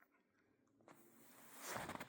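Near silence, then a footstep crunching in snow rises near the end.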